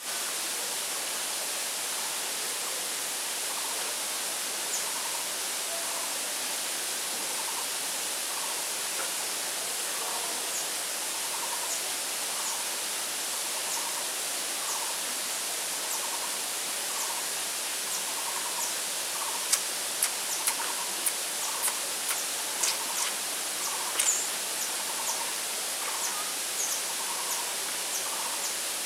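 Steady rushing of running water, with a short note repeated evenly a little under twice a second and a run of sharp clicks about two-thirds of the way in.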